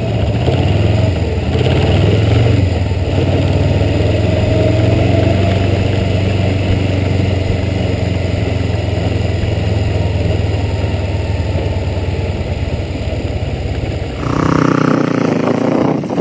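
Kawasaki EX-4 parallel-twin motorcycle engine heard from on board, running at a fairly steady pitch and level while being ridden. Near the end the sound changes abruptly to a motorcycle heard from the roadside as it rides past and away.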